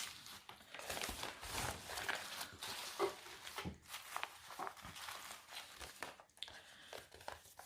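Paper packaging being handled and opened by hand: irregular rustling and crinkling with small clicks and scrapes, as a taped craft parcel is unwrapped.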